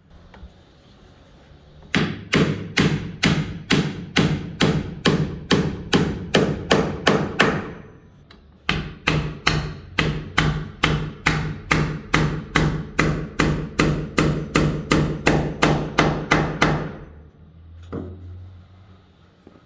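Hammer driving a nail into wood: two long runs of steady blows, about three a second, with a short pause between them, then one lone knock near the end.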